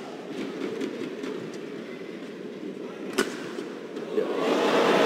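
Badminton rally: sharp cracks of rackets striking the shuttlecock over a steady crowd murmur. Near the end the crowd cheers, swelling louder as the point is won.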